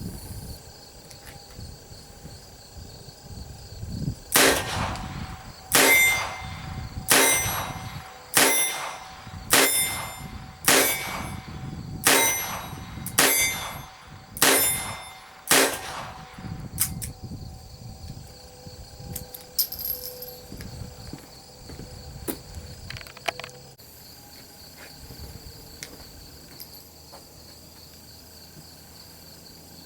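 Ten rapid shots from a Ruger GP100 revolver chambered in .22 Long Rifle, fired about one every 1.2 seconds to empty its ten-shot cylinder, each a sharp crack with a short ringing tail. Crickets chirp steadily behind.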